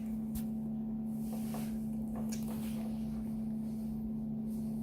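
A steady low hum, with a few faint clicks and rustles over it.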